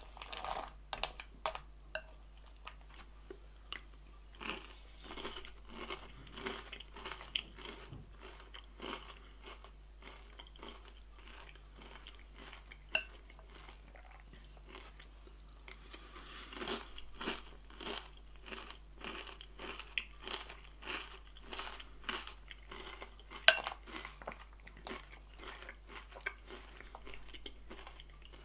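Close-up chewing of crunchy food, about two crunches a second, pausing for a few seconds midway. A few sharp clicks stand out, the loudest about two-thirds of the way through.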